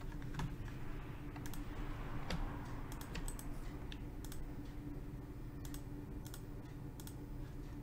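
Sparse, irregular clicks of a computer keyboard, over a steady low hum.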